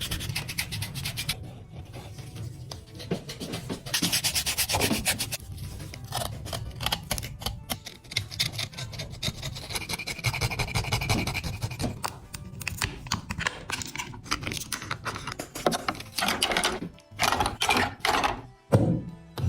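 Hand abrasive work on the metal body of a toy truck, sanding or filing with quick back-and-forth strokes in runs, the strokes louder and more spaced out near the end. Background music plays underneath.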